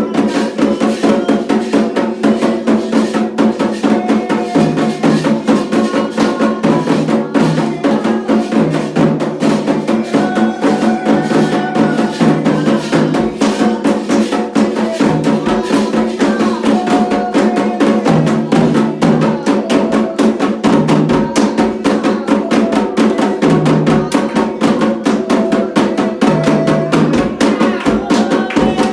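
Candomblé drumming: atabaque hand drums with a wooden or bell-like percussion line playing a fast, steady ritual rhythm.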